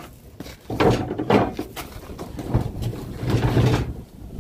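Knocks and scrapes of a wooden block being moved into place on gravel, with crunching boot steps on the gravel. There are a few separate knocks and a longer scrape near the end.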